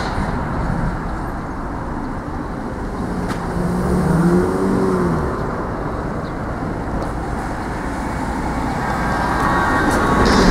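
Steady road traffic noise from cars running along a city street. One vehicle passes close about four seconds in, its engine tone rising and then falling.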